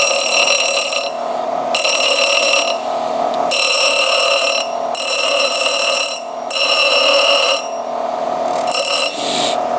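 Grinding wheel running with a steady whine while a bronze Model T rear cam bearing is pressed against the wheel's corner about six times, a second or so each time. Each touch gives a high, ringing screech as an oil notch is ground into the bearing.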